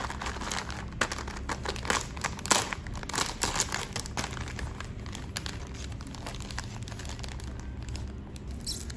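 Crinkling and tearing of a Pocky snack box and its plastic wrapper being opened by hand: irregular rustles and crackles, busiest in the first few seconds and sparser toward the end.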